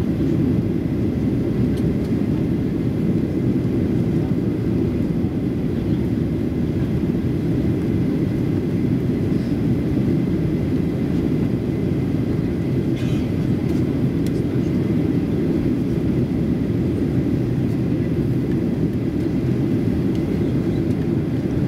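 Steady drone of a Boeing 737-800 airliner's twin jet engines and the rush of air over the fuselage, heard inside the passenger cabin during the climb after take-off, with a faint high whine held over it.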